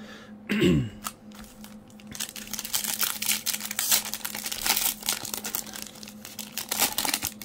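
Plastic foil wrapper of a Topps baseball card pack crinkling and tearing as it is ripped open by hand, a dense run of crackles over the last five seconds or so. Less than a second in, a brief falling vocal sound.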